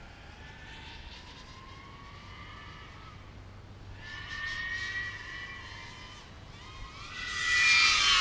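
Flywoo Mr Croc 5-inch racing quadcopter on a 6S battery, its brushless motors and propellers whining in the distance, the pitch sliding up and down with throttle. It swells briefly about halfway through, then grows much louder near the end as it comes closer.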